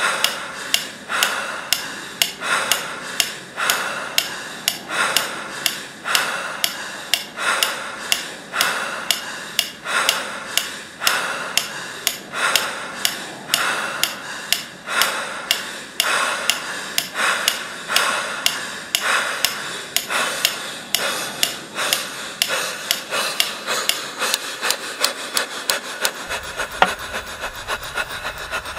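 A rhythmic beat of sharp ticks, each followed by a rasping, scraping swell, at first a little more than one a second. The beat speeds up steadily, and near the end the ticks come close together.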